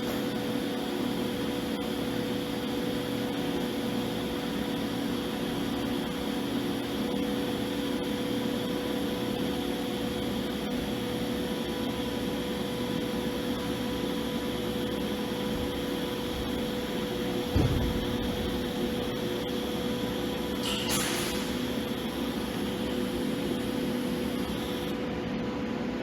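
TIG welding arc burning steadily, a constant electrical hum with hiss. A single thump comes about two-thirds of the way through, and a brief burst of hiss a few seconds later.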